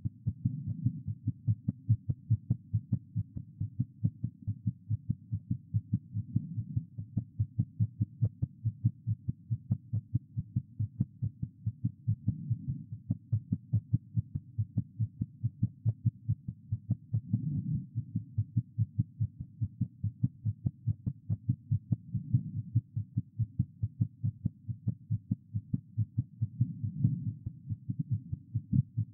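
A woman's heart heard through a stethoscope, beating fast and pounding in a quick, even train of low thuds. A soft rushing swell rises under the beats about every five seconds.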